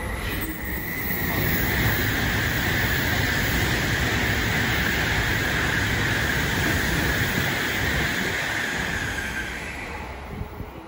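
Tokaido Shinkansen N700-series train passing through the station at speed without stopping. A rushing roar of wheels and air with a strong hiss over it builds over the first two seconds, holds steady, and fades as the train clears the platform near the end.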